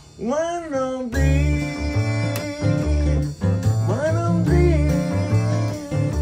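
A blues band playing: acoustic guitar, plucked upright bass and drums, with a voice swooping up and down without words near the start and again about four seconds in.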